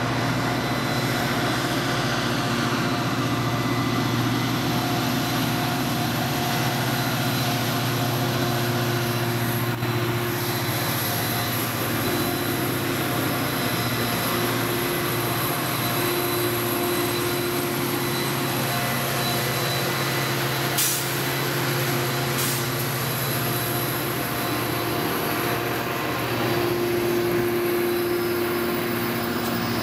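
EMD F40PH-type diesel locomotive running past close by with a steady, even engine drone. A few sharp clicks sound over it in the second half.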